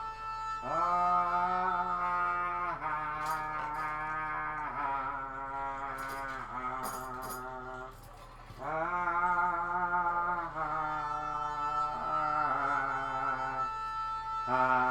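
A voice singing wordlessly in long held notes that step up and down in pitch, with a short pause about eight seconds in. A steady high tone hums underneath.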